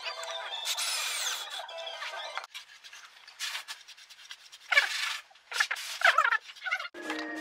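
A small hand plane shaving maple in several short, separate scraping strokes over the second half. These follow a couple of seconds of a whine that shifts in pitch.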